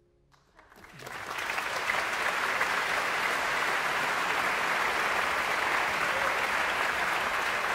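Concert-hall audience applauding: a few scattered claps about half a second in, swelling within a second into full, steady applause.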